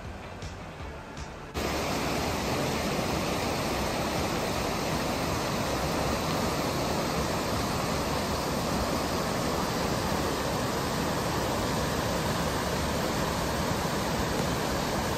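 River water rushing steadily over boulder rapids, cutting in abruptly about a second and a half in.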